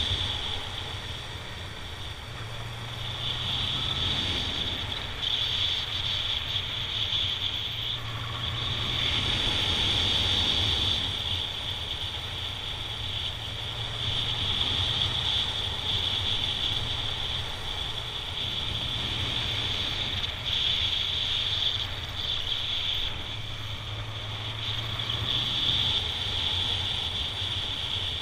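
Honda Nighthawk 750's inline-four engine running under way on a ride, its revs rising and falling every few seconds.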